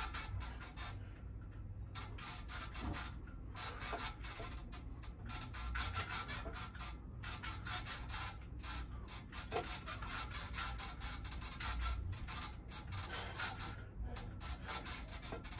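Metal power-tower dip station creaking and clicking under a man's weight as he does bodyweight dips, a dense, uneven run of rattling clicks.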